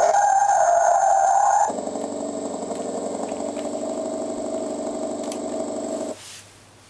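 Simulated engine sound from an RC car's bazsound sound-unit speaker: a louder, wavering high note for the first second and a half, then a steady idle hum that cuts off suddenly about six seconds in.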